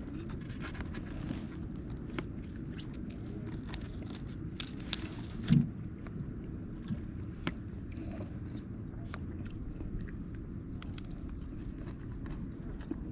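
A person eating, with chewing and small crinkles and clicks from handling a foil tray and paper towel, over a steady low outdoor rumble. One short, louder low sound comes about five and a half seconds in.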